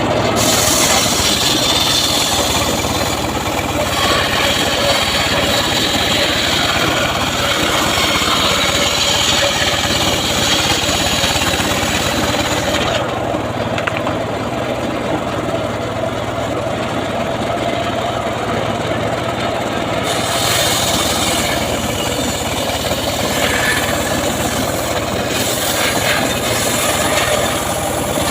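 Homemade engine-driven sawmill running steadily while its blade saws sengon (albizia) wood. The high hiss of the cut drops away for several seconds in the middle, leaving the engine's steady hum, then comes back.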